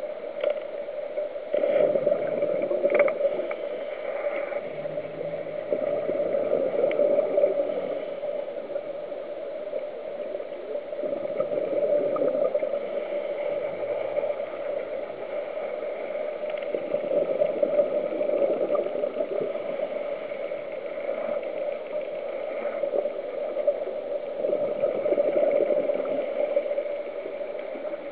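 Scuba diver's regulator breathing heard underwater through a camera housing: a steady hiss with a surge of bubbling exhaust about every five seconds.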